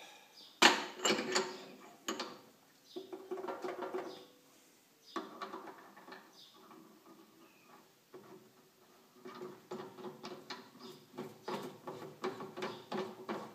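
Steel boring bar and its extension handled and fitted into a drill press spindle by hand: metal clinking and rattling. A sharp clank with a short metallic ring comes just under a second in, then short bursts of clinks, and a longer run of quick rattling clicks near the end.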